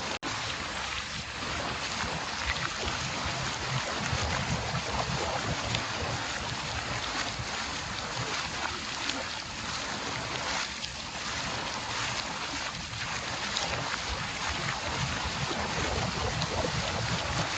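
Water mill wheel turning, with water splashing and rushing steadily off it. The sound drops out for an instant just after the start.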